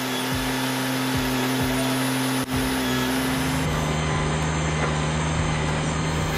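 Heavy machinery running with a steady motor hum, which shifts to a different, somewhat higher pitch a little over halfway through.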